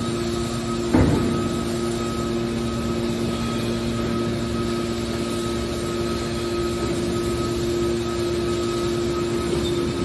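Hydraulic scrap metal baler running with a steady hum from its power unit, with a single knock about a second in.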